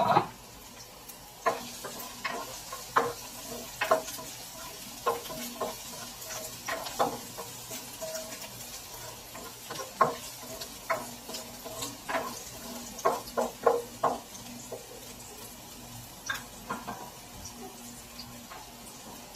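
Garlic and ginger sizzling in hot oil in a nonstick wok, while a spatula stirs them, tapping and scraping against the pan in quick irregular strokes. The stirring thins out after about fifteen seconds, leaving mostly the sizzle.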